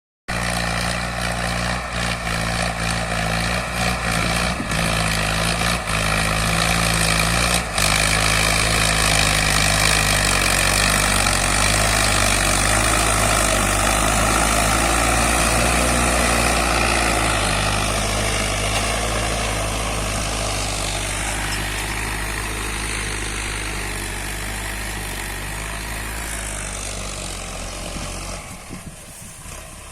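Mahindra Arjun 555 DI tractor's diesel engine running steadily under load while pulling a mouldboard plough. It fades over the second half and drops away near the end.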